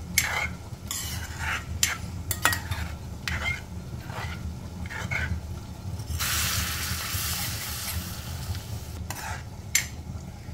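Metal ladle stirring tempered dal in a pan, with short clinks and scrapes against the pan. About six seconds in, a hiss of sizzling rises for about two seconds.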